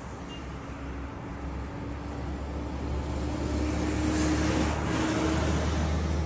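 Heavy road traffic from a convoy of trucks hauling armoured vehicles on trailers: a steady mix of engine hum and tyre noise that grows louder about three seconds in as the trucks come closer.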